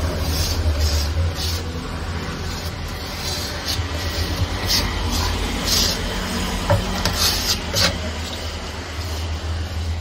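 Putty knife scraping wood filler paste into the gaps along a plywood shelf, in a series of short scrapes, over a steady low hum.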